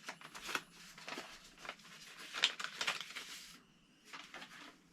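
Paper crinkling and tearing as a mailed envelope is opened by hand and its contents pulled out. The rustling stops about three and a half seconds in, then a few softer rustles follow.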